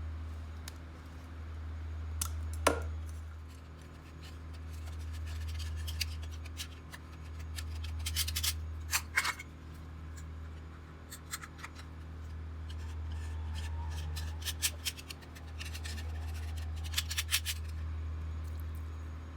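Slime being squeezed and stretched by hand, giving off clusters of sharp clicks and crackling pops. A steady low hum swells and fades slowly underneath.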